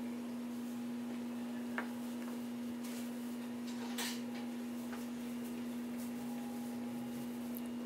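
A silicone spatula spreading thick chocolate ganache, with soft scraping and two small knocks, about two and four seconds in, over a steady low hum.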